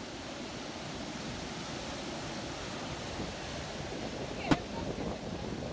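Steady wash of sea surf, with a single sharp click about four and a half seconds in.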